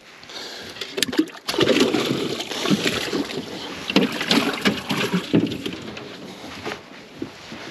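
Water splashing and sloshing against a small boat, with scattered knocks. It starts about a second in and dies down after about five seconds.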